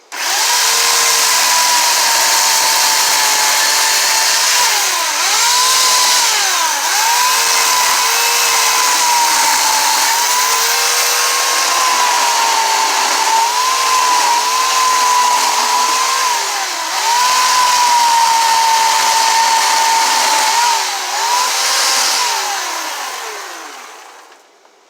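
Chainsaw at full throttle cutting into a log, its pitch sagging again and again as the chain bites and then climbing back. It winds down near the end.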